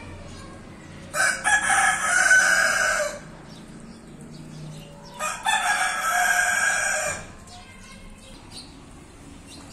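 Rooster crowing twice, each crow about two seconds long and opening with a few short broken notes before the long held call.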